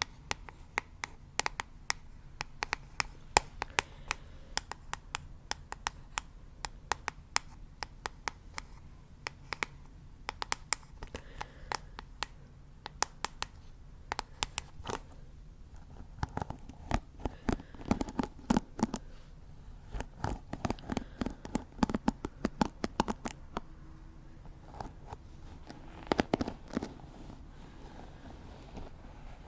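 Close-miked ASMR hand sounds: a dense run of irregular scratchy clicks and crackles, heavier and louder past the halfway point.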